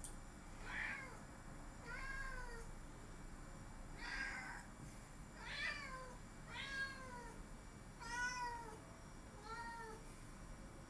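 Domestic cat meowing repeatedly, about seven short calls spaced a second or two apart, each rising and then falling in pitch.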